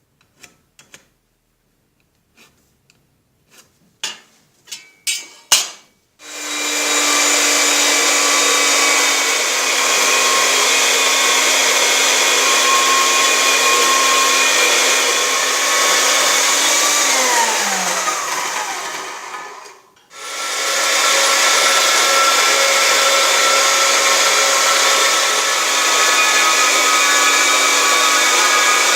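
A few metallic clicks and knocks, then an electric power tool motor starts and runs steadily with a whine. About eleven seconds later it winds down with a falling whine, stops briefly, then starts again and keeps running.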